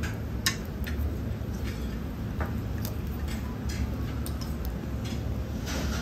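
Seafood grilling at a tabletop BBQ grill: irregular sharp crackles and pops over a steady low hum.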